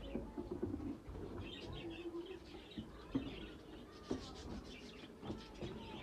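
Budgerigars chirping and chattering in many short calls, with a few sharp clicks and knocks as nest boxes are handled and opened.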